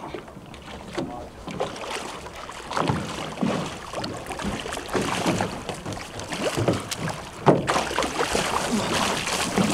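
Water sloshing and splashing against a boat's hull with wind on the microphone, as a large hooked shark thrashes at the surface alongside; the splashing grows louder and hissier near the end, with a single knock just before.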